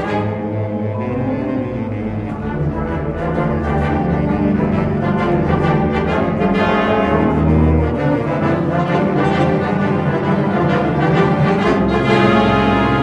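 Symphonic wind band playing a loud, dense, fast-moving passage, full band of woodwinds, brass and percussion together.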